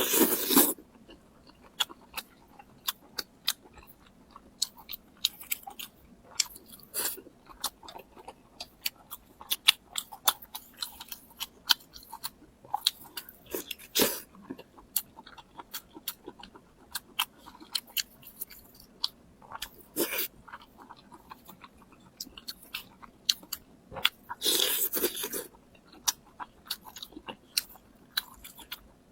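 Close-miked eating sounds: a person biting and chewing crunchy food, with many crisp crackling clicks and a few louder crunching bites.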